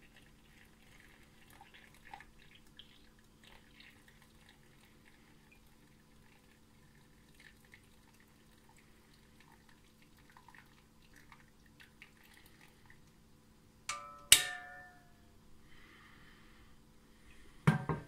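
A thin stream of water from a stovetop whistling kettle trickling faintly into a glass teapot's stainless steel mesh infuser. About two-thirds of the way through comes a sharp metallic clink that rings briefly, and a second knock near the end.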